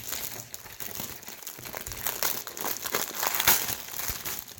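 Packaging of a giant gummy candy pizza being crinkled and torn open by hand, an irregular run of crackling rustles with a few louder crinkles.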